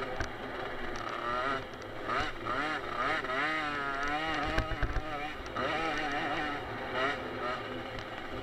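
50cc automatic two-stroke motocross bike engine, heard from onboard, rising and falling in pitch as the rider opens and eases the throttle. A few knocks come about halfway through.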